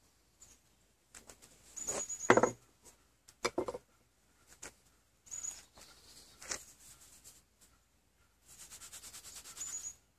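A small metal bottle knocked and tapped as ash is shaken from it onto cotton fabric, with short metallic rings and the loudest knock about two seconds in. Then hands rub the ash into the cloth, ending in a quick run of scratchy rubbing strokes.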